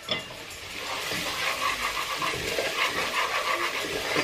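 Wooden spoon stirring a thick onion, garlic and spice paste in a steel pot, the paste sizzling as it fries. The spoon scrapes in quick, repeated strokes that start about a second in.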